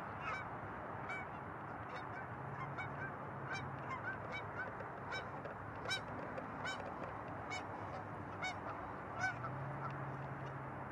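A flock of geese honking: many short, overlapping honks at irregular intervals over a steady background hiss.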